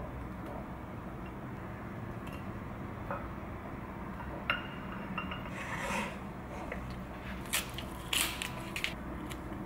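Tongs and a small ceramic bowl being handled while vegetable sticks are put in and the bowl is set down on a wooden tray: scattered light clicks and short scrapes, growing busier in the second half, over a steady low hum.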